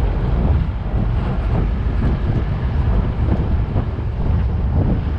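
Open-sided safari jeep driving along a dirt track: a steady engine and road rumble, with wind buffeting the microphone.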